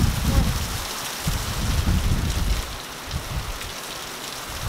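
Heavy rain pouring down in a severe thunderstorm, a steady hiss throughout. Strong wind gusts rumble on the microphone for the first few seconds and ease after about three seconds.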